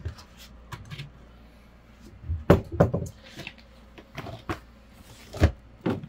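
Boxes and bags of frozen food being packed into a Whynter portable fridge-freezer: a series of knocks and thumps as the cardboard boxes hit the cabinet and wire basket, bunched about two and a half seconds in and again near the end, with soft rustling of packaging between.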